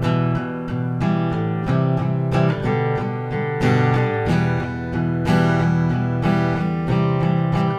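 Steel-string acoustic guitar strummed with steady down-strokes in a repeating rhythm, moving through the E minor, C and G chords.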